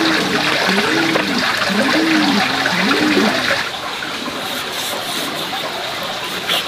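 Steady rush of running water, with a low call that rises and falls, repeated about once a second through the first half. A little past halfway the rush drops slightly and faint crisp clicks come in.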